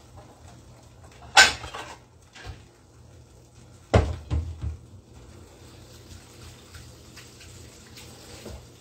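Kitchen clatter with no speech. A sharp knock comes about a second and a half in. A second knock, followed by two or three smaller ones, comes about four seconds in, over a faint steady low hum.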